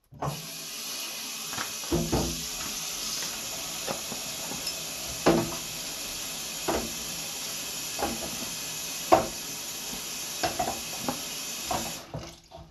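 A faucet running steadily into a sink, filling water to soak sharpening stones. It starts just after the start and is shut off near the end. Scattered knocks and clunks sound over it, the loudest about nine seconds in.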